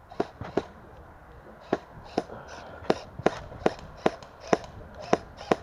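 Airsoft gun firing single shots, sharp close cracks: two near the start, then after a short pause a steady run of about two or three shots a second.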